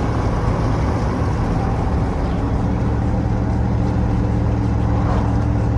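A car driving at a steady pace: a low, even engine hum with road noise.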